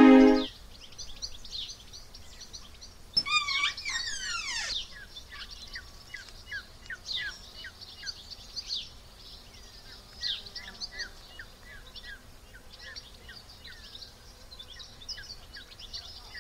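Birds chirping outdoors, many short repeated chirps, with one louder call that falls in pitch about three seconds in.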